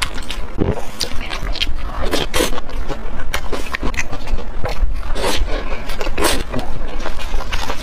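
Close-up chewing and mouth sounds of a person eating grilled, spice-coated meat skewers, picked up by a lapel microphone: a run of irregular wet clicks and smacks.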